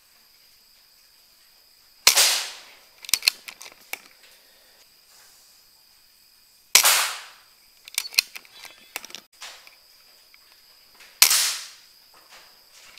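PCP air rifle firing three times, about four and a half seconds apart. Each shot is a sharp crack with a short ringing tail, followed about a second later by a few quick clicks.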